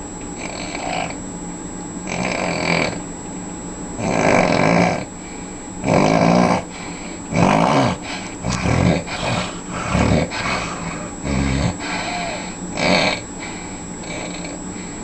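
A man snoring loudly, a snore about every second or two, over a steady mechanical hum.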